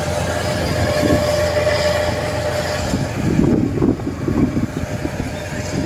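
Kubota DC-93 rice combine harvester running while cutting and threshing rice: a steady mechanical rumble with a faint, steady whine above it.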